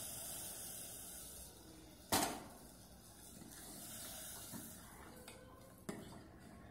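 Cookware being handled: sautéed grated coconut scraped from a nonstick kadhai into a steel pot of hot milk, then a spatula stirring the pot. One sharp knock of pan on metal about two seconds in, and a lighter knock near the end.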